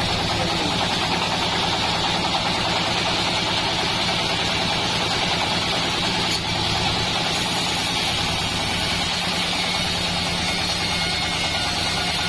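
Bandsaw mill running steadily: a low, even machine hum with a hiss above it, unchanging throughout.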